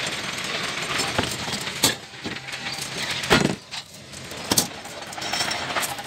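Construction work on roof formwork: a handful of sharp knocks and metallic clanks over a steady background noise, the heaviest about halfway through.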